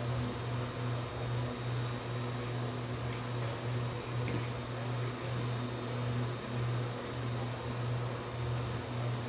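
A steady low hum of a small electric motor, pulsing slightly, with a faint high whine above it. A few faint clicks of a spoon in a plastic bowl come through now and then.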